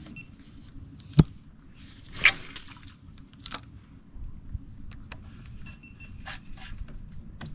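Fishing rod and reel being handled: a sharp click about a second in, a short swish a second later, then scattered small clicks and clinks over a low background hum.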